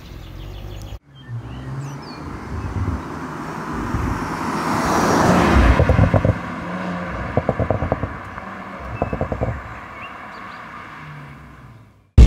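Audi RS4 Avant's 2.9-litre twin-turbo V6 driving past. After a brief cut, the engine note builds with a rush of tyre and wind noise to its loudest about halfway through, then fades away, broken by short bursts of crackling.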